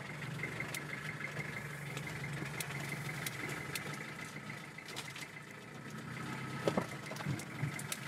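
Pickup truck engine running steadily, heard from inside the cab, with a few faint clicks and rattles.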